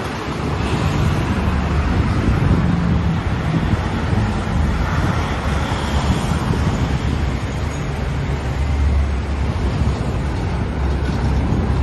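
Steady road traffic noise: vehicle engines and tyres, with wind rumbling on the microphone.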